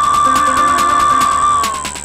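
Electronic music played live on hardware synths: a sustained high synth tone over lower notes and fast, regular ticking percussion. Near the end the high tone slides down and the music drops in level and thins out.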